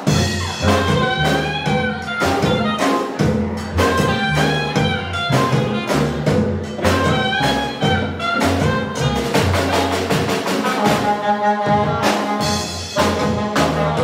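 An Afro-Cuban jazz band playing live, with a saxophone carrying a bending melody over upright bass, keyboard and drums, on a steady beat.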